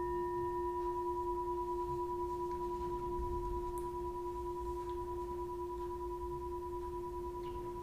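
Hand-held singing bowl ringing after a single mallet strike: a low tone and a higher one held steady, fading slowly with a slight waver.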